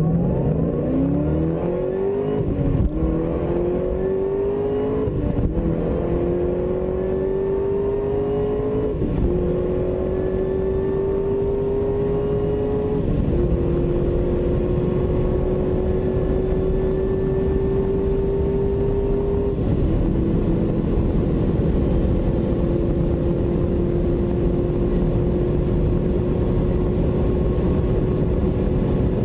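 Chevrolet Corvette ZR1's supercharged 6.2-litre V8 at full-throttle acceleration, heard from inside the cabin. Its pitch climbs through each gear and drops at five upshifts, the last about twenty seconds in, then rises only slowly in top gear at very high speed.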